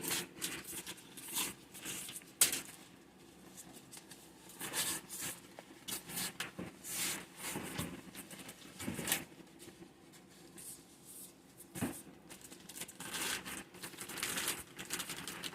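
Factory-sealed protective wrapping being torn open and pulled off a boxed model locomotive, in irregular crinkling and tearing rustles.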